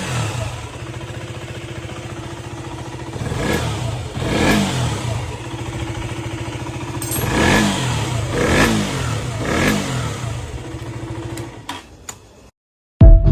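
KTM 125 single-cylinder engine idling with five quick throttle blips, then fading out near the end, run to check its sound after the fix for a faulty chain tensioner that had caused a knocking noise.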